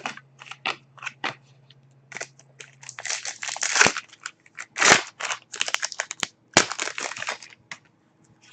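Foil wrapper of a trading-card pack crinkling and tearing as it is opened and handled, a string of short rustles and crackles that is busiest and loudest in the middle.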